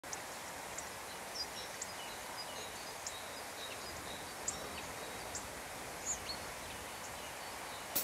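Outdoor nature ambience: a steady, even rushing hiss with scattered short, high bird chirps.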